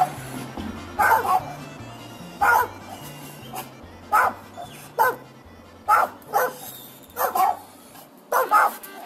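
Small chihuahuas barking, about a dozen short sharp barks spaced through the stretch, over background music with a stepping bass line that stops near the end.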